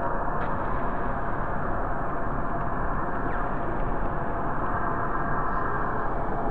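Dark ambient noise drone: a dense, steady rumbling hiss with faint held tones inside it, unchanging in level.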